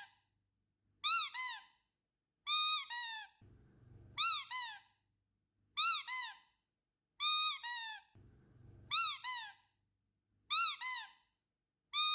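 Squeaky dog toy squeezed over and over, about once every one and a half seconds. Each squeeze gives a short, high squeak that rises and then falls, followed straight away by a second, shorter and lower squeak.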